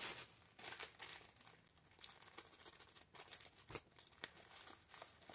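Plastic shipping mailer crinkling and rustling in short, scattered bursts as it is torn open by hand.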